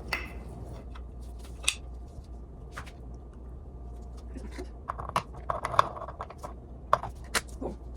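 Scattered light clicks, taps and brief scraping from stand-mixer gear-housing parts being handled and greased, busiest about five to six seconds in, over a low steady hum.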